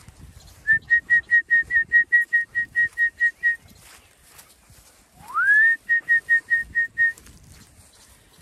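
A shepherd whistling to call in sheep. A quick run of about fourteen short whistle notes on one high pitch comes at about five a second. After a pause, a longer whistle slides up to that pitch and is followed by six more short notes.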